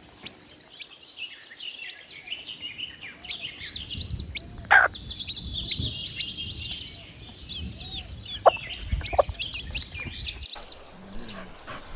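Many domestic chicken chicks peeping, a continuous chatter of short, high-pitched chirps overlapping one another, with one louder call about five seconds in.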